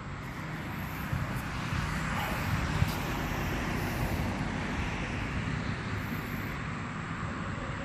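Steady rumble of distant vehicle noise, growing a little louder over the first two seconds and then holding.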